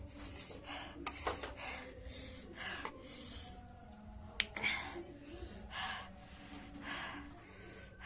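A woman breathing sharply in and out through her mouth in repeated hissy gasps, about one or two a second, from the burn of chilli-hot noodles. There are two sharp clicks, about a second in and a little past four seconds.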